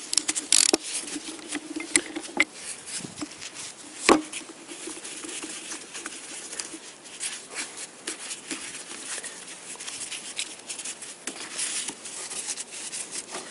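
Ratchet wrench with a 10 mm socket clicking in quick runs as the small bolts of a Toyota VVT-i camshaft sprocket assembly are tightened by hand, with one sharp metal knock about four seconds in.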